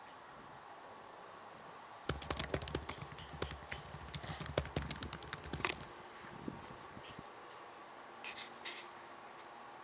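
Computer-keyboard typing: a quick run of irregular key clicks lasting about four seconds, then two short clicks near the end.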